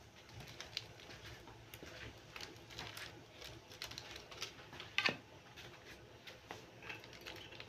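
Cumin seeds and whole spices with a pinch of asafoetida crackling in hot oil in a kadhai, a tadka: faint, irregular pops and ticks, with one louder pop about five seconds in.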